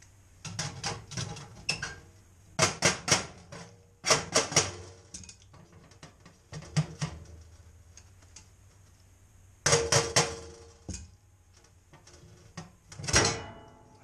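Metal tools and boiler parts clinking and clattering as they are handled and set down, in irregular groups of quick knocks, over a low steady hum.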